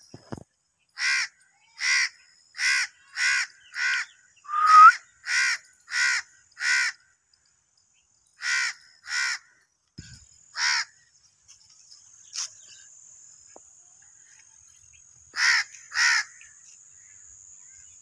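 Alexandrine parakeet giving short, harsh squawks: nine in a quick run in the first seven seconds, then a few more spaced out, ending with a pair near the end.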